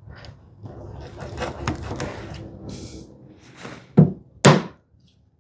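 Chisel chopping a hinge mortise in solid cherry: a couple of seconds of scraping and handling noise, then two sharp knocks about half a second apart, the loudest sounds here.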